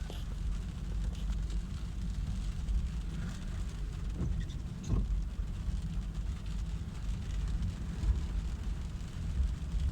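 Low, steady rumble of a car being driven, heard from inside the cabin, with light rain on the car.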